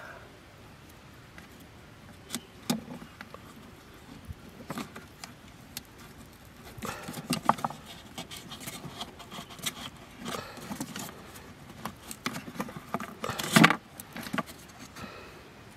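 Hands working corrugated cardboard and small trap parts: scattered clicks, taps and scraping, a few at first, then in clusters, with the loudest click near the end.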